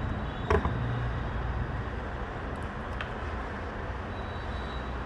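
Steady low rumble of background noise, like distant traffic or a ventilation fan, with a sharp click about half a second in and a fainter click near three seconds.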